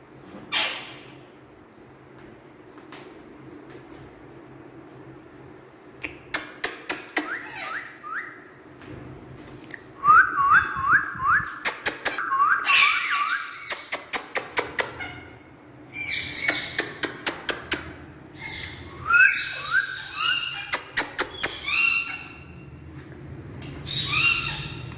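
Parrot calling in quick runs of short rising chirps, several per second, in a few bursts of a few seconds each, after a single sharp call near the start.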